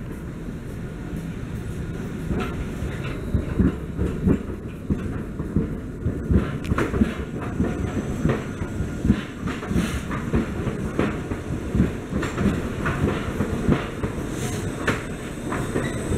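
Train running on rails: a steady low rumble with wheels clattering over rail joints. The clacks start about two seconds in and come irregularly, several to the second.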